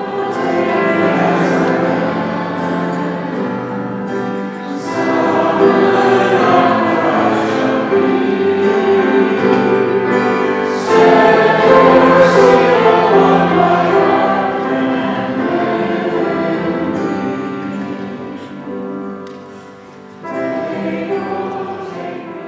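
Congregation singing a worship song together, accompanied by an acoustic guitar, with a brief pause between phrases near the end.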